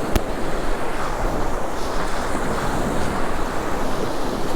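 Sea surf breaking and washing up the beach, a steady rushing noise with wind buffeting the microphone. A single short click comes just after the start.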